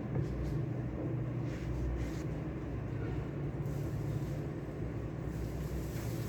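Steady low rumble of background ambience, with a few faint light taps in the first two seconds.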